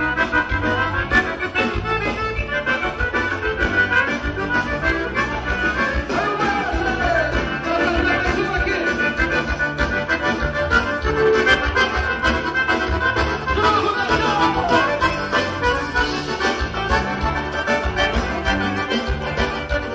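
Live gaúcho dance-band music led by an accordion, over a steady bass beat.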